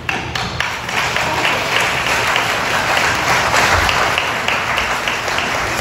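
Congregation applauding, many hands clapping together. It starts suddenly and fades near the end.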